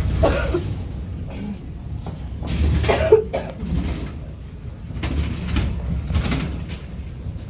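Schindler hydraulic elevator car running, a steady low rumble inside the cab, with a few short scuffing noises over it.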